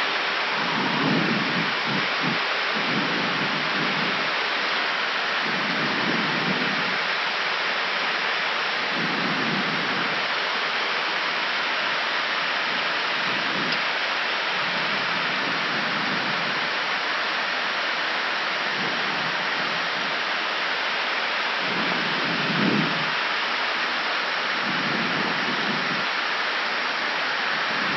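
Steady rushing airflow noise in an Airbus A319 cockpit on descent, with a low rumble that swells and fades every few seconds.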